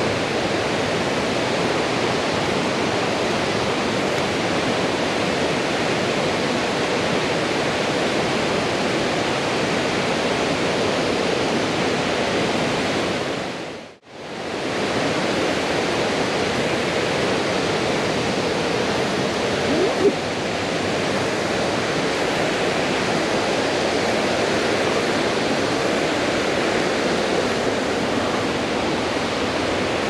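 Rushing water of a gorge river and its waterfalls, a steady full roar with the stream running high. The sound fades out and straight back in once, about midway.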